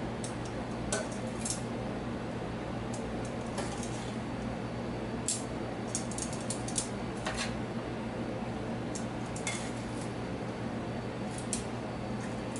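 Scattered light clinks and taps of utensils against a serving dish as chicken wings are plated, over a steady low hum.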